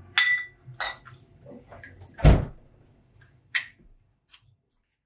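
Kitchen handling sounds: a few separate knocks and clinks of things being set down and moved on a counter, with a short ringing clink near the start and one heavier thump a little over two seconds in.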